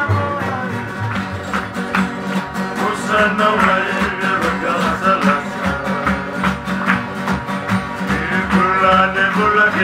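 Fijian string-band music: several acoustic guitars strummed together under a steady low bass line, with men singing a song.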